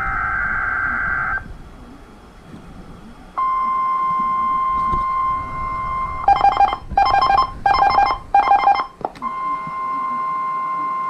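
Emergency Alert System signals from a NOAA Weather Radio broadcast. A short burst of warbling data tones comes first. After a pause there is a steady high alert tone near 1 kHz, broken in the middle by four rapid buzzing beep bursts before the steady tone resumes.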